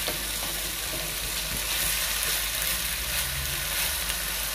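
Cabbage, rice and duck meat sizzling steadily in a deep frying pan while a slotted spatula stirs and scrapes through the mixture.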